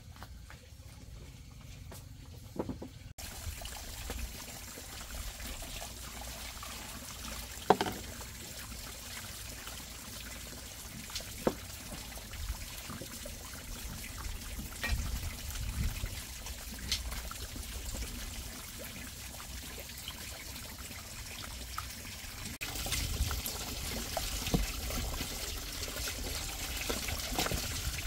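Water running from a pipe into a plastic basin in a steady trickle, with a few sharp knocks and clinks as a cooking pot is washed by hand.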